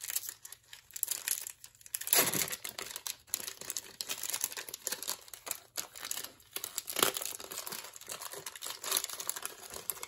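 Wax-paper wrapper of a 1995 Topps Bazooka baseball card pack crinkling and tearing as it is pulled open by hand, in irregular crackles with louder rips about two seconds in and around seven seconds.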